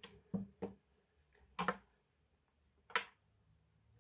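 A few light clicks and taps at irregular intervals, from small tools and phone parts being handled during an iPhone screen replacement: two quick ones close together early, then single ones about halfway through and near three seconds in.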